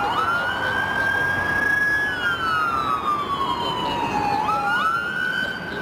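Emergency vehicle siren on a slow wail: it sweeps up quickly, holds high, slides slowly down and sweeps up again about four and a half seconds in. Under it is a steady rush of jet noise from the Boeing 787-9 airliner on final approach.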